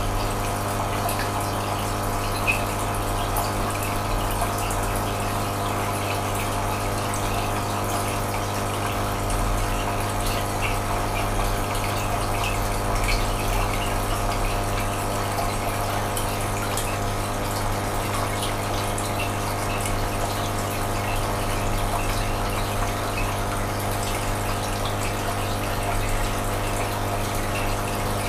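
Aquarium pump running steadily: a low, even hum with the rush of moving water over it and faint scattered ticks.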